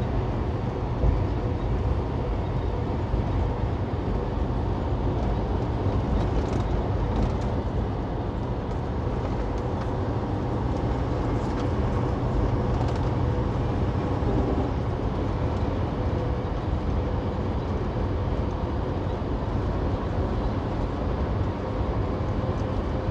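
Steady engine drone and road rumble heard inside the cab of a semi-truck cruising on the highway, with a faint steady hum over it.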